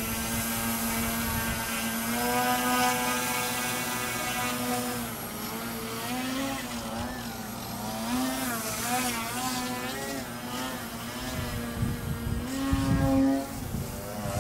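Motor and propeller of a Yak 55 foam RC airplane in flight, a steady buzzing whine for the first few seconds, then wavering up and down in pitch as it manoeuvres through a trick.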